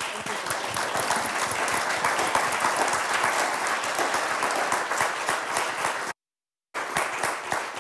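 Audience applauding, a steady clatter of many hands clapping. The sound cuts out completely for about half a second about six seconds in, then the applause resumes.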